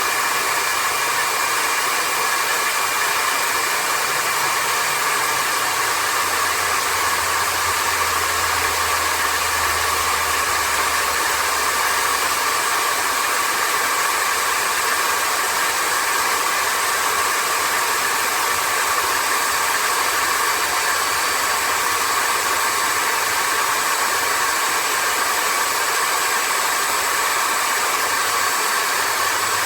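Vistefly V15s Max cordless stick vacuum cleaner running steadily: a constant rush of air with a high, even motor whine.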